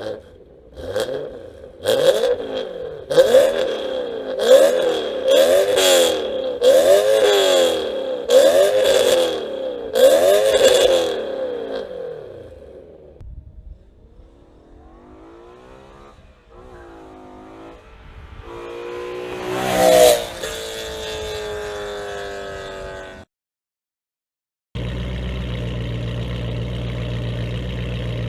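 BMW M3 E92's 4.0-litre V8 on an aftermarket exhaust, blipped about once a second for some nine quick revs, with sharp pops and crackles. After that, quieter rising-and-falling revs build to one loud rev near the middle. The sound then cuts off, and after a short gap the engine idles steadily.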